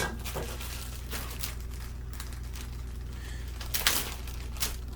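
A few light clicks and taps of kitchen items being handled, the loudest about four seconds in, over a steady low hum.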